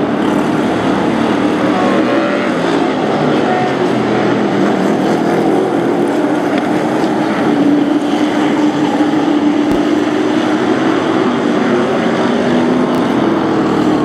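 A pack of Super Pro race trucks running at racing speed on a short oval. Their engines make a steady, dense drone whose pitch rises and falls as the trucks accelerate through the turns and pass by.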